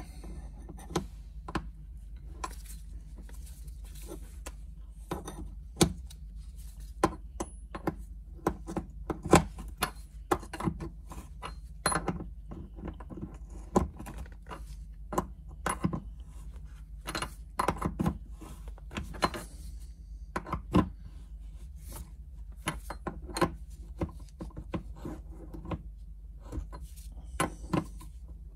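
Open-end wrenches clicking and clinking against the threaded metal end fittings of Numeric shifter cables as their lock nuts are tightened, one wrench (a 14 mm) holding the fitting. The clicks are irregular, often several in quick succession, over a steady low hum.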